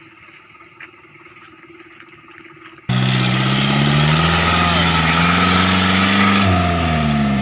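A faint steady hum for about three seconds, then an abrupt switch to a loud vehicle engine running, its pitch drifting slightly up and down.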